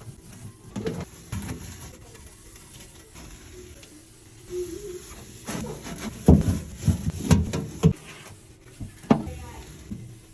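Knocks, clicks and rubbing from handling and wiping down a microwave, with a cluster of louder knocks a little past the middle.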